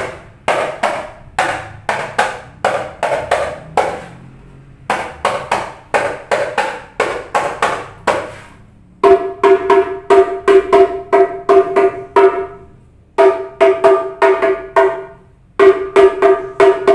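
Keprak, a small 23 cm skin-headed hadroh frame drum, struck by hand in quick rhythmic phrases of sharp slaps with short pauses between them. In the second half the strokes ring with a clear pitch. The new skin head is still tight.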